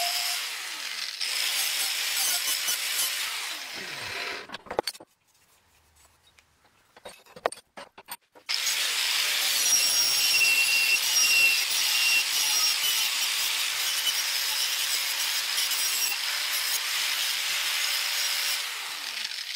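Porter-Cable angle grinder with a wire wheel scrubbing the steel blade of an antique cleaver, a steady high whine over the rasp of the wheel. About four seconds in it is switched off and spins down, a few clicks follow in a pause of about three seconds, and then it starts again and runs steadily to the end.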